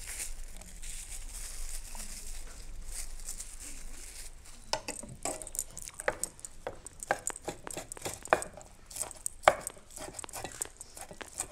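Chef's knife chopping shelled shrimp on a wooden cutting board: irregular sharp knocks of the blade against the board, starting about five seconds in.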